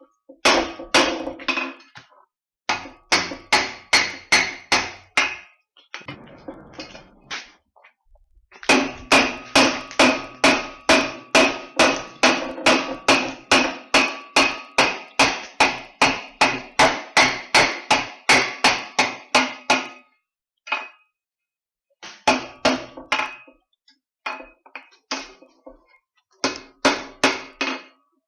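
Blacksmith's hand hammer striking steel on an anvil in runs of steady blows, about three a second, each with a metallic ring. The longest run lasts about ten seconds in the middle, with brief pauses between the shorter runs.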